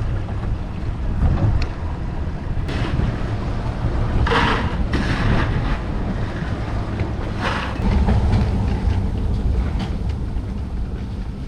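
Wind buffeting the microphone on a small open boat, a constant deep rumble, with a few short bursts of hiss, the strongest about four seconds in and another near the middle.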